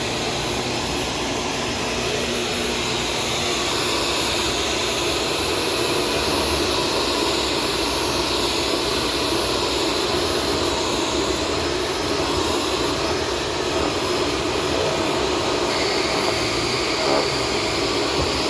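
Shark vacuum cleaner with a self-cleaning brush roll running steadily, an even rushing motor and airflow noise that grows a little louder about four seconds in.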